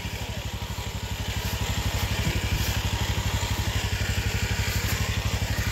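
Four-wheeler ATV engine idling, a steady, rapid even putter.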